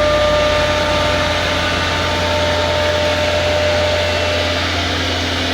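CNC router running, its spindle giving a steady high whine over a continuous low machine hum; the whine fades slightly near the end.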